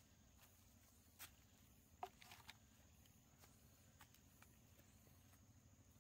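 Near silence with a few faint, scattered knocks and crackles, as from light handling on dry bamboo litter; the sharpest knock comes about two seconds in, followed by a short run of crackles.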